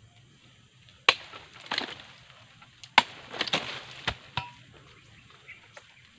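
Long-handled harvesting blade chopping into the stalk of a ripe oil palm fruit bunch on a low palm: two sharp strikes about two seconds apart, with cracking and rustling of fronds and fibre after each. A dull thud about four seconds in as the cut bunch drops.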